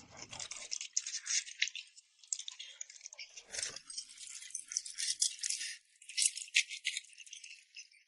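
Chopsticks stirring and mixing rice noodles in a bowl, giving a fast, uneven run of clicks, taps and scrapes with short pauses.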